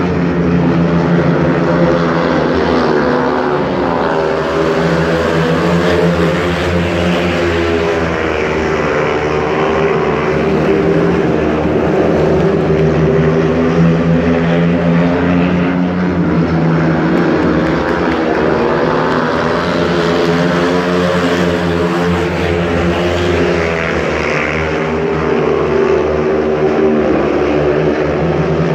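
A heat of speedway motorcycles racing round the track: 500 cc single-cylinder engines give a loud, continuous drone whose pitch rises and falls every few seconds as the bikes lap.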